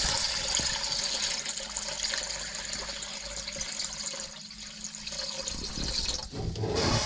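Water poured from a plastic bucket splashing into a stainless steel pan around a new automatic bilge pump, filling the pan to test whether the pump switches on. The pour slackens about four seconds in and breaks off briefly near the end.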